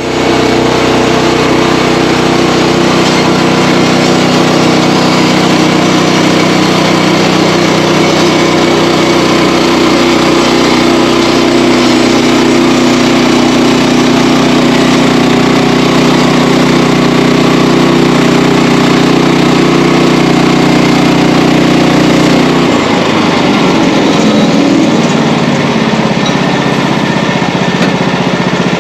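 Sawmill's small engine running steadily at a loud, constant pitch; about three-quarters of the way through its note changes and turns rougher and lower.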